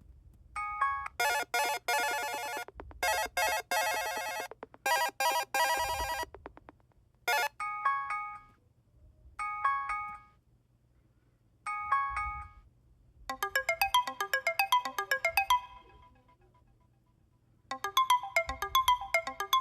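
Amazon Fire HD 10 tablet notification and alarm tones played one after another through its speaker. Three rapid pulsing buzz tones come first, then a short blip and three brief chimes, then two quick jingles of fast notes, each tone separated by a moment of quiet.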